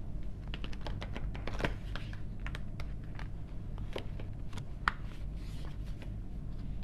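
A tarot deck being shuffled: a quick irregular run of light card clicks and flicks, thinning out after about five seconds, over a steady low hum.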